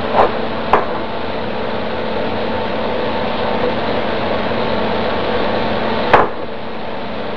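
Hands working seasoning into a raw chuck roast: three sharp knocks, two within the first second and one near the end, over a steady hiss.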